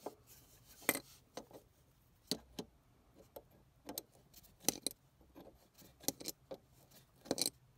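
Adjustable spanner clicking and knocking against a brass drain-off valve as it is turned to open it at the lowest point of a central heating system, a series of irregular sharp metallic clicks.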